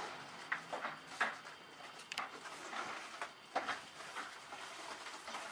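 A paper lantern garland being handled and pegged up: light paper rustling with several short clicks and taps, spaced about a second apart.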